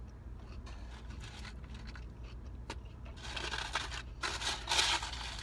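Fingers picking through crispy fried-batter crumbs in a paperboard food box, rustling and crinkling in bursts over the last two seconds or so, over a steady low hum.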